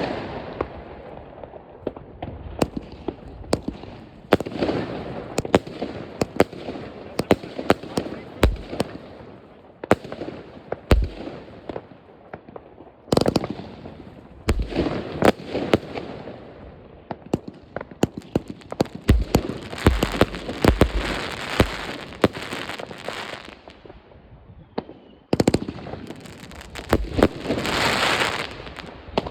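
Argento Sakkara fireworks going off: a dense, irregular run of sharp bangs, with two longer spells of crackling, about two-thirds in and again near the end.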